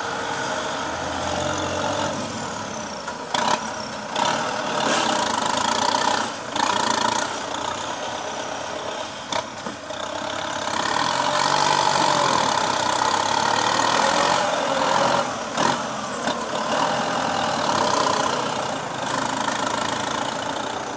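Kubota farm tractor's diesel engine running steadily while its front blade pushes loose soil, louder through the second half, with a few sharp clicks.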